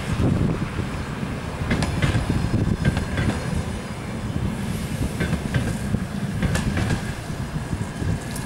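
Passenger coaches of an express train rolling past: a steady low rumble of wheels on rail, broken by irregular sharp clicks and knocks as the wheels run over the track.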